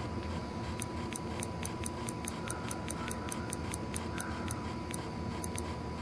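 An iPod's click wheel being scrolled, its clicker ticking rapidly, about six clicks a second. Each click marks one step through the menu list. The clicks start a little under a second in and spread out near the end, over a steady faint tone and a low hum.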